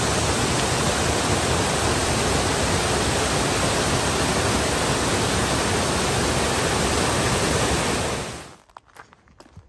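Small creek waterfall rushing steadily, an even wash of falling water that fades out about eight and a half seconds in.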